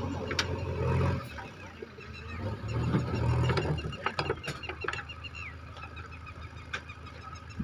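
A JCB 3DX backhoe loader's diesel engine running, swelling louder twice and then easing off, while chickens cluck in quick repeated notes, with a few sharp clicks.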